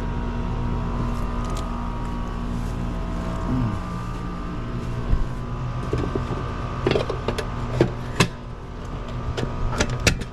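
Air-conditioning system running with a steady mechanical hum during a refrigerant pump-down, with a brief falling pitch about three and a half seconds in. Sharp clicks and knocks come in the second half.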